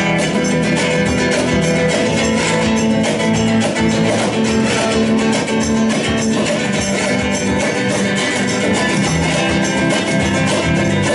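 Small live band playing an instrumental passage: a strummed acoustic-electric guitar and an electric guitar over drums keeping a steady beat.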